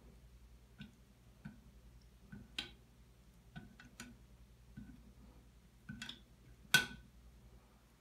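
Scattered light clicks and taps as a cat's paw and claws knock on a bathtub's metal spout and drain-lever plate, about ten in all at uneven spacing, the sharpest near the end.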